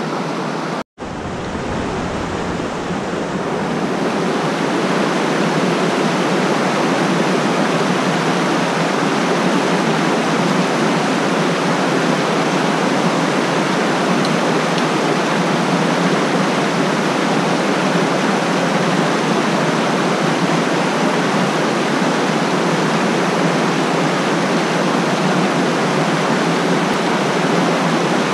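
Loud, steady rushing of whitewater in a rocky mountain stream, where it pours over small cascades. The sound drops out briefly about a second in.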